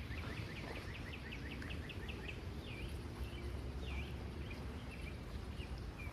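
A songbird singing: a quick run of short high chirps, about six a second, then a few slurred swooping notes, over a steady low rumble.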